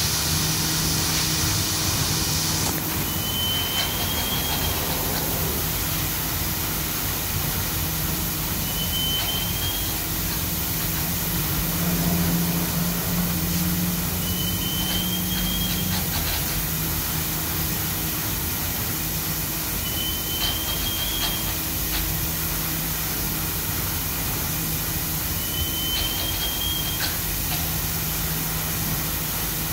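Wheat pouring in a steady stream from a tipped trailer body through the steel grating of a silo intake pit: a continuous hiss over a steady low hum. A short, high, rising squeak repeats about every five and a half seconds.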